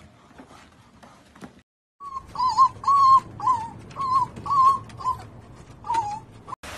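Pembroke Welsh corgi puppy making a run of short, whiny yips, each wavering in pitch, about two a second, starting about two seconds in; faint clicks before that.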